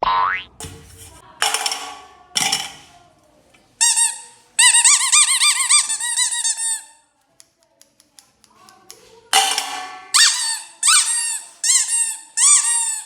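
Sound-effect track: a few short sweeping swishes, then a long high squeaky cry with a wobbling pitch, and a run of shorter wobbling cries near the end.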